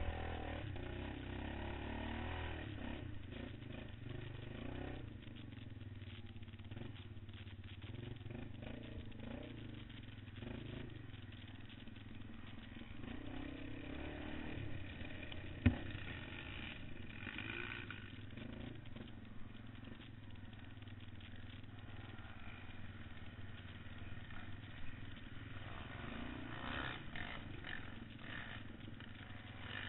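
Quad bike (ATV) engine running continuously as the machine is ridden along a dirt race track, with a single sharp knock about halfway through.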